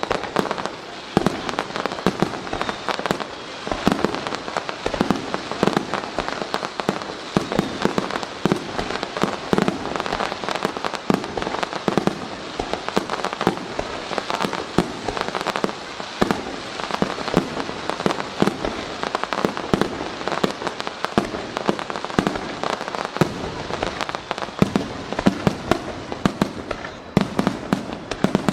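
Fireworks display: aerial shells bursting in quick succession, many sharp bangs a second with no let-up.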